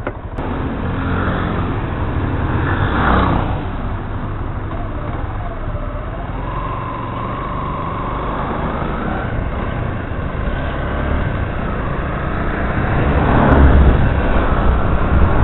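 Yamaha Crosser 150 S single-cylinder motorcycle running on the move in traffic, with steady engine rumble and wind noise. A tone wavers and then rises in the middle, and the noise grows louder near the end.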